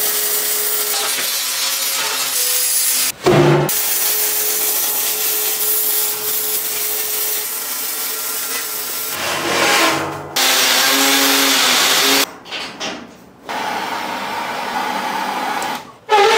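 Electric arc welding on a steel smoker firebox: the arc hisses and crackles steadily through several welding passes, each cut off abruptly.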